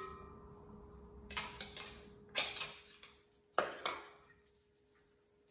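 A utensil clinking and scraping against a stainless steel mixing bowl as crumbled goat cheese is scraped in from a small plastic bowl: a handful of sharp clinks, the loudest about two and a half and three and a half seconds in.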